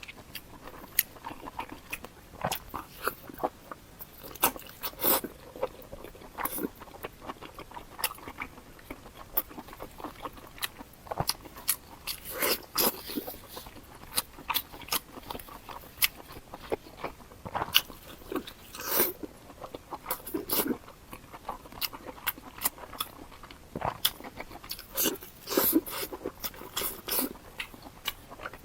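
Close-miked eating sounds: biting into and chewing strips of pork belly, with irregular crunches and wet mouth clicks.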